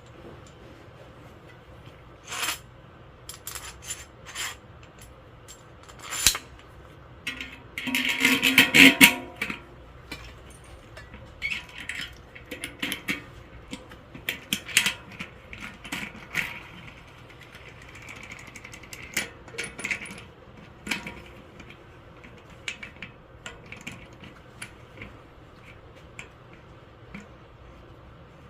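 Small metal bicycle hub parts and tools clicking and clinking as they are handled, with a louder spell of rattling about eight seconds in.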